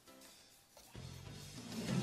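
Background music coming in about a second in and growing louder.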